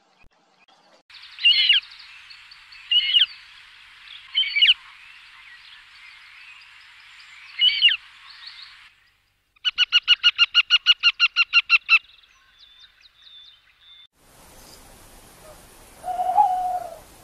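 Wild animal calls: four sharp, high falling calls spread over several seconds, then a fast run of about a dozen evenly spaced pitched notes lasting about two seconds, and near the end one lower, drawn-out call.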